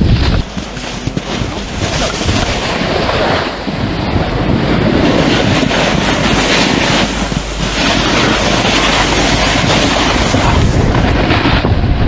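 Wind rushing over the microphone, mixed with the hiss and scrape of a snowboard sliding and carving over snow, rising and falling in uneven surges.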